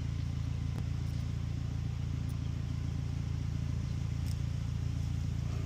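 A steady low hum like a running engine or machine, with a few faint clicks over it.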